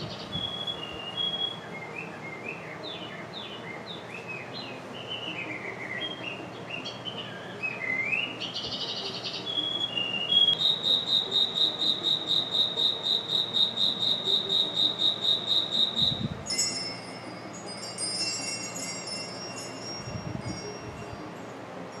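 A night-light projector's built-in sound effects playing through its small speaker: bird-like chirps and rising whistles, then about halfway through a high, evenly pulsing chirp about five times a second, then tinkling chime tones near the end.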